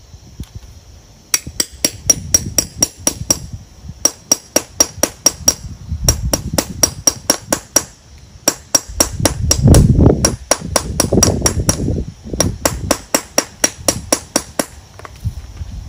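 Hammer striking a grommet-setting punch to set grommets through vinyl tarp on a wood block. The strikes come in quick runs of light, sharp taps, about five a second, with short pauses between runs.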